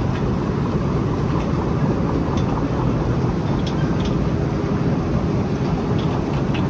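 Steady low rumble of airport terminal background noise, with a few faint light clicks scattered through it.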